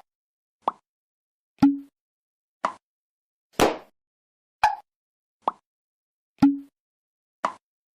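A string of short pop sound effects, eight in all, about one a second with silence between; each pop is brief and sharp, a couple of them with a short low tone at the end.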